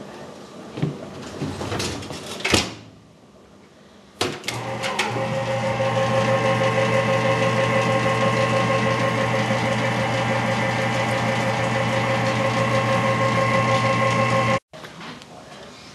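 A trash compactor's pull-out drawer is pushed shut with a few knocks, the loudest about two and a half seconds in. About four seconds in, the compactor's electric motor starts and runs with a steady hum for about ten seconds, then cuts off suddenly.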